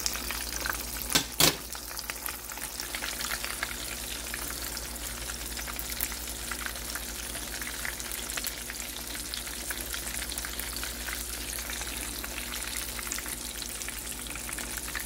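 Panko-breaded elk cube steak shallow-frying in a skillet of oil: a steady, dense crackle and sizzle of hot oil. About a second in come two sharp clicks of the metal tongs.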